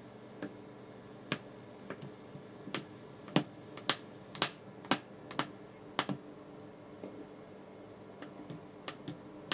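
Kitchen knife cutting sliced ham into strips on a wooden cutting board, the blade knocking on the board in sharp irregular strokes about one or two a second. The strokes are loudest in the first six seconds and soften after.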